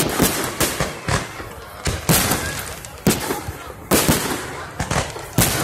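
Fireworks display: aerial shells bursting in a series of sharp bangs, about a dozen over a few seconds and sometimes two in quick succession, with crackling between the reports.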